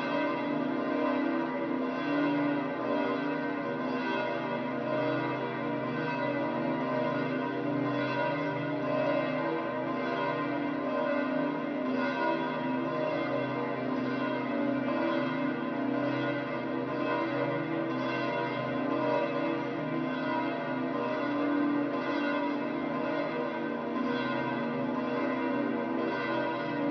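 The large bronze bells of St Peter's Basilica pealing, repeated strikes overlapping into a dense, continuous ringing of many tones.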